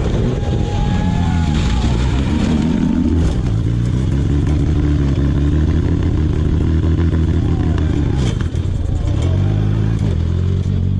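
Rally car engine running, heard from inside the cabin, holding fairly steady revs with a brief dip about eight seconds in.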